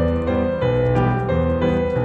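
Background instrumental music led by piano, with short notes changing in a steady rhythm over bass notes.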